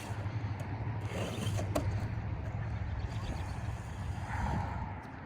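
Traxxas TRX-4 RC truck's electric motor and geared drivetrain whirring as it drives in high-speed gear, with a couple of sharp clicks in the first two seconds.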